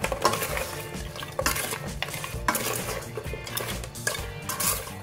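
Metal ladle stirring and scraping pork bone pieces around an aluminium pot, a string of irregular scrapes and clinks against the pot.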